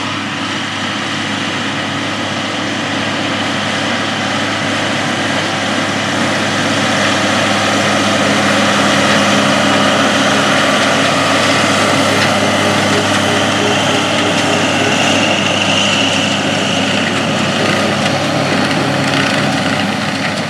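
John Deere 4955 tractor's six-cylinder diesel engine running steadily while pulling a lime spreader past, growing louder toward the middle and fading toward the end.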